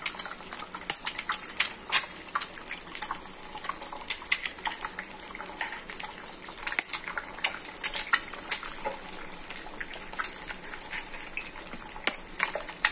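Eggs frying in hot oil in a nonstick pan: a steady sizzle with frequent sharp crackling pops as the oil spits.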